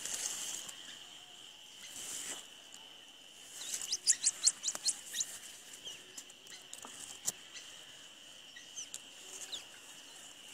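Rapid high-pitched cheeping from downy black chicks in a ground nest, loudest in a quick flurry about four seconds in with a few single chirps later, over an insect's steady high trill. Brief rustles of dry grass near the start and at about two seconds.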